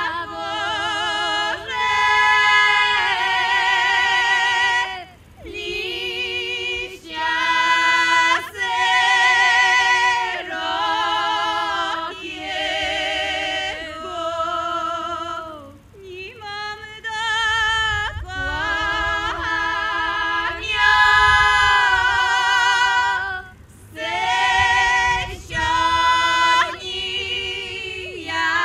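Three women's voices singing Podhale highland polyphonic folk song unaccompanied: long held notes in close harmony with vibrato, in phrases of a few seconds broken by short breaths.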